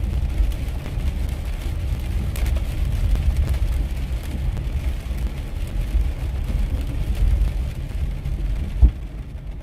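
Steady low rumble of a car heard from inside the cabin, with one short thump near the end.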